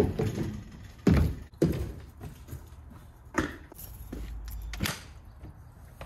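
Footsteps on wooden outdoor stairs and decking: a few heavy, uneven thuds spaced a second or more apart.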